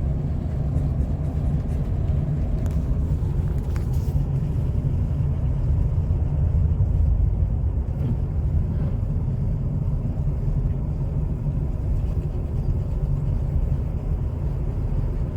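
Steady low road and engine rumble heard from inside a car's cabin as it drives along a snowy highway.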